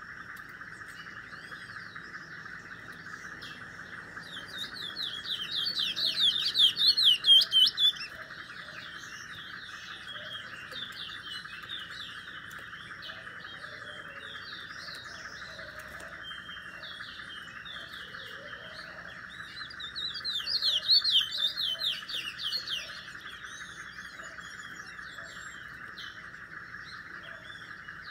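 A small caged songbird singing: two loud bursts of rapid warbling song, about four seconds in and again about twenty seconds in, with scattered chirps between them, over a steady background hiss.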